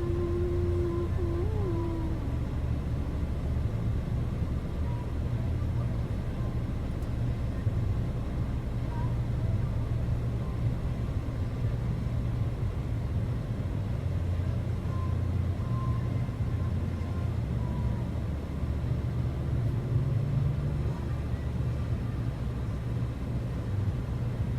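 Steady low rumble of a car driving, heard from inside the cabin, with a faint brief wavering tone in the first couple of seconds.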